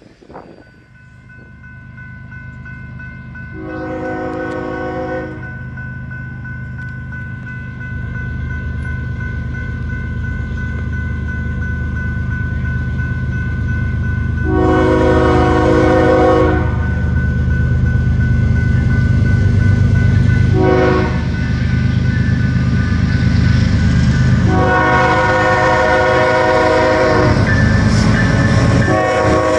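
Kansas City Southern diesel locomotive sounding its multi-tone air horn in the grade-crossing pattern (long, long, short, long) as it approaches a crossing. A crossing signal bell rings throughout, and the engine's rumble grows steadily louder as the train nears.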